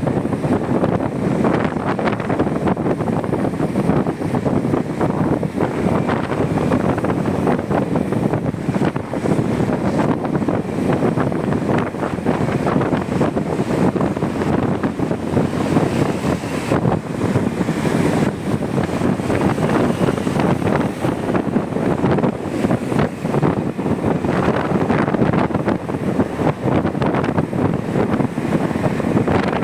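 Wind rushing over the microphone of a moving motorcycle, a steady buffeting noise that covers the bike's own sound.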